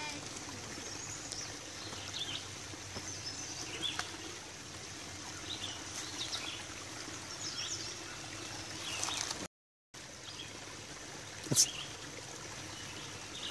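Shallow woodland creek trickling over rocks, with birds chirping now and then. About two-thirds of the way through, the sound cuts out for a moment, and then there is a single sharp knock.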